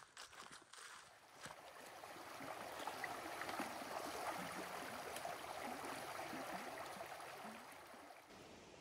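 Rushing creek water, swelling to its loudest a few seconds in and fading away near the end. The creek is running high after heavy rain.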